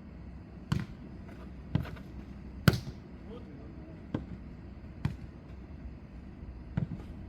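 Jokgu ball being kicked and bouncing on the court in a rally: six sharp thuds at roughly one-second intervals, the loudest near the middle.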